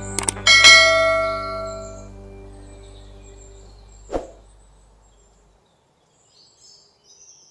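Subscribe-button animation sound effect: two quick mouse clicks, then a bright notification-bell ding that rings out and fades over about three seconds. A single sharp knock comes about four seconds in, then near silence.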